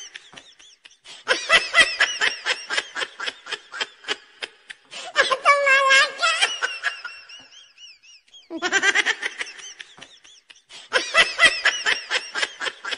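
Bursts of rapid, high-pitched laughter, repeated several times with short pauses between, like a looped laughing sound effect.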